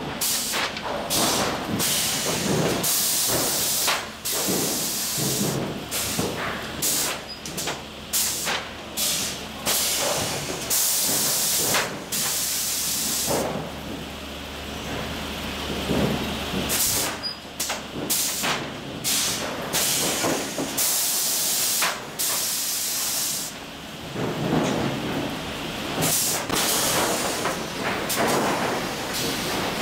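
Sawmill lumber stacker working 12-foot boards: repeated loud hissing bursts of air from its machinery, with many knocks and clatter of boards and steel in between. A low steady hum runs for several seconds midway.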